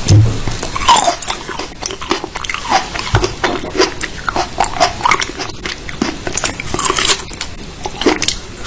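A dog chewing and biting on something, with many sharp clicks and crunches and short squealing sounds that bend up and down in pitch.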